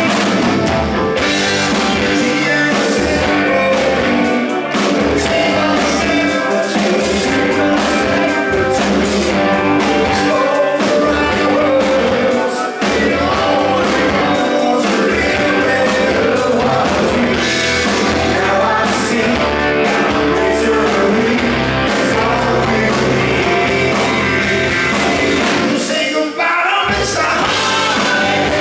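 Live rock band playing a song: lead vocals sung over electric bass, guitars and a drum kit, with backing vocals. Near the end the bass and drums drop out for a moment before the band comes back in.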